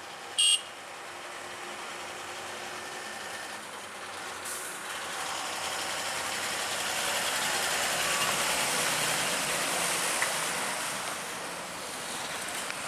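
Ashok Leyland Captain 230 hp diesel tanker truck struggling up a steep hairpin climb. Its engine and tyre noise grow louder as it comes close and passes, then ease a little near the end. A short, high-pitched beep sounds about half a second in and is the loudest moment.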